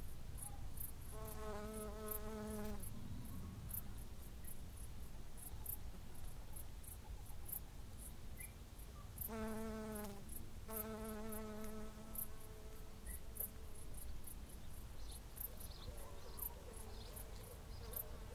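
A cricket chirping in short, very high, evenly spaced chirps, about two a second, over a low rumble of wind. Twice a distant wavering hum rises for a couple of seconds.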